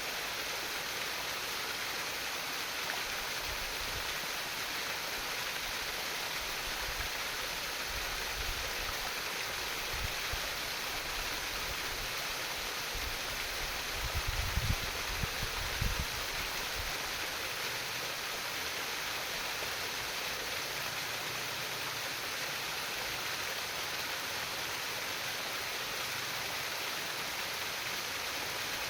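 Stream water babbling steadily over stones, an even rush of splashing. A few brief low rumbles come about halfway through.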